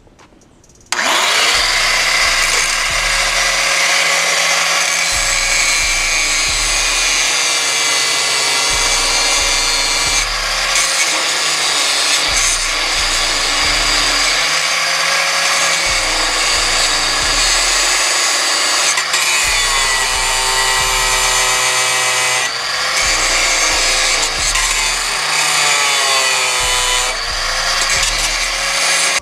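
Angle grinder cutting through a stuck control-arm bolt, starting abruptly about a second in; its high whine sags in pitch and recovers several times as the disc bites under load.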